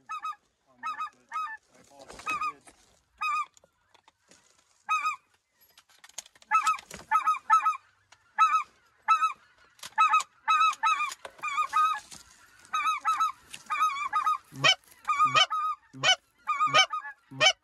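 Goose calls blown close by: short, high two-note yodels typical of specklebelly (white-fronted goose) calling, spaced out at first, then coming in quick runs from about six seconds in. Near the end, deeper honks that drop in pitch join in.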